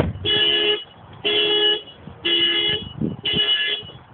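Car alarm honking the car's horn in a steady pulse: four half-second honks about a second apart.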